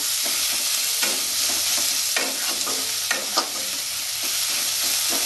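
Sliced onions sizzling in a small amount of mustard oil in a metal kadai, with a steady frying hiss. A metal spatula stirs them and scrapes against the pan several times, most sharply about three seconds in.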